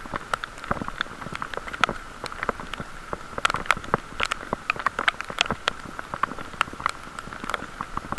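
Heavy rain, with raindrops striking close to the microphone as a dense run of irregular sharp ticks, over a steady high hum.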